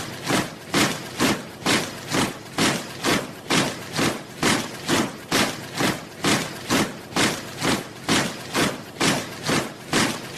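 A steady, even rhythm of thuds, a little over two a second, each a short rough impact.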